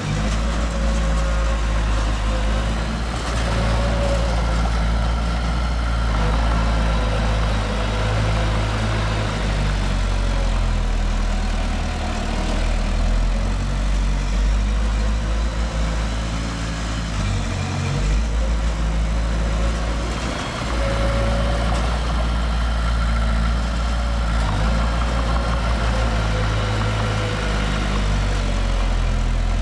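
Heavy diesel engine of earthmoving machinery running steadily, a deep rumble with a faint whine above it.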